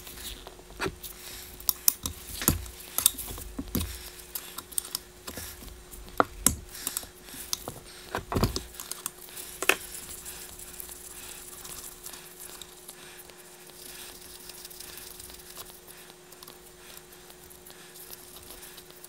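Irregular metal clicks and taps of a wrench working loose the banjo bolts on the hard oil line of a Yamaha YZ250F engine. They come thickest in the first half and give way to quieter handling of the loosened line. A faint steady hum sounds underneath.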